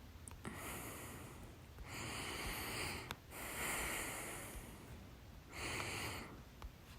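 A person with hiccups breathing heavily between hiccups: four long, noisy breaths, with a faint click about three seconds in.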